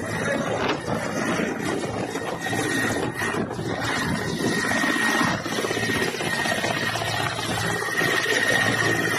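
Military helicopter running close by on the ground, rotors turning: dense, continuous engine and rotor noise with a steady high turbine whine over it.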